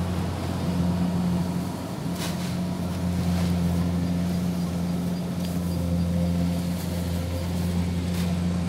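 An engine running steadily at a constant speed, giving an even low hum, with a couple of faint knocks in the first few seconds.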